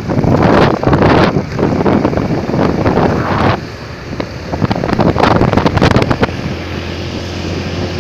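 Wind buffeting the microphone over the noise of a moving vehicle, rough and jolting, easing about halfway through, with a steady low engine hum near the end.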